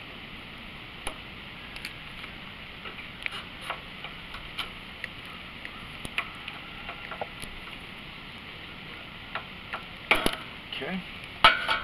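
Scattered light clicks and clinks of pliers working the rubber fuel line off a small engine's carburetor, with a louder clatter of handling near the end.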